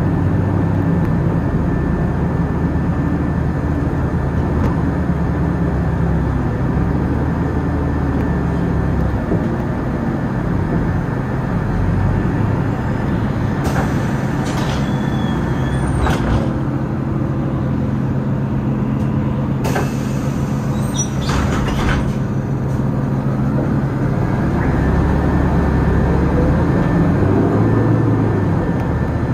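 City bus engine running, with two hisses of compressed air of about two seconds each as the pneumatic doors open at a stop and close about six seconds later. Near the end a whine rises as the bus pulls away.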